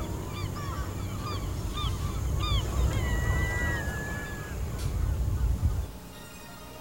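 Birds calling in a salt marsh: many short, arching chirps several times a second, with a longer whistled note about three seconds in, over a low rumble that stops near the end.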